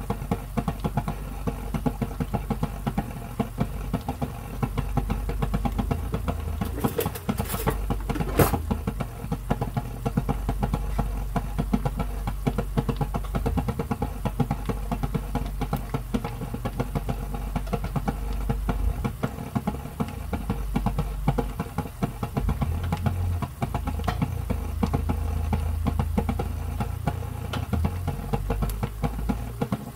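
Thick sweet and sour sauce with pork bubbling and popping as it simmers in a frying pan, a dense run of small crackles over a steady hum. There are a couple of sharper pops about seven and eight seconds in.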